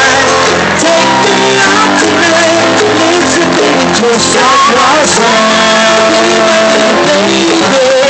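Loud music with singing playing steadily.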